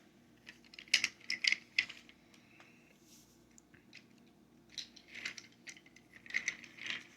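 Wooden toy train cars and track pieces clicking and clattering as they are handled and set down, in two bunches: about a second in and again in the last couple of seconds.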